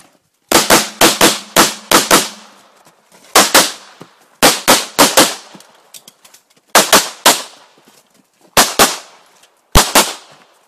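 Gunshots fired in quick strings during a practical-shooting stage: about twenty loud shots in groups of two to five, with pauses of about a second between the groups.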